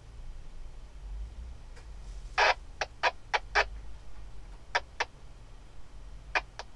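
Jeep Wrangler TJ engine running with a steady low rumble under a series of sharp cracks and knocks. Five come in quick succession about two and a half seconds in, then two quick pairs later on.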